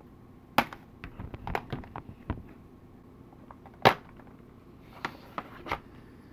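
Sharp clicks and knocks of small hard parts being handled and taken apart, a lightsaber hilt chassis being disassembled. Irregular handling sounds with a cluster of light clicks, one loud knock just before the four-second mark, and a few more knocks near the end.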